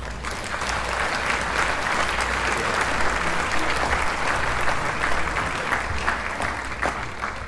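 Applause: many hands clapping in a steady, dense patter.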